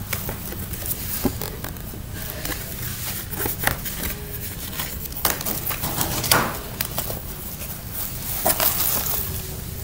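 Paper and plastic rustling and crinkling, with light clicks and taps of plastic Easter eggs being handled and opened, coming as irregular short rustles and clicks.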